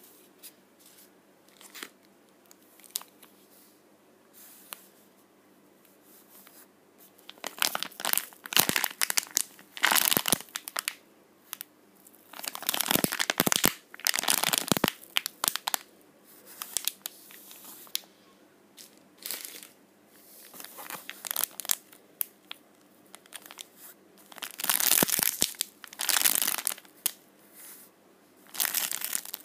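Clear plastic wrappers of packaged squishy toys crinkling as they are handled and pressed. It is quiet for the first few seconds, then comes in repeated bursts with short pauses between.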